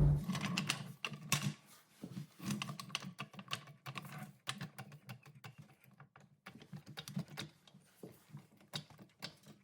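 A rapid, irregular series of light clicks and ticks, fairly quiet.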